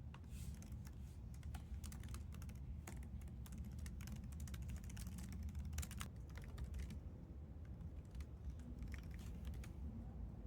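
Typing on a computer keyboard: quick runs of key clicks that thin out after about seven seconds, over a low steady hum.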